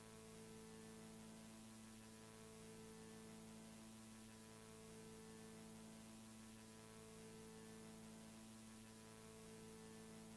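Near silence with a faint, steady electrical hum and light hiss.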